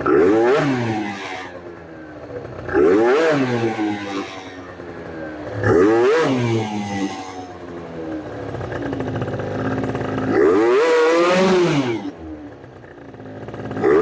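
MBK Booster scooter's tuned 70cc Minarelli two-stroke engine revved repeatedly in short blips on a paddock stand, each one rising sharply and falling back. About ten seconds in it holds a longer climbing rev.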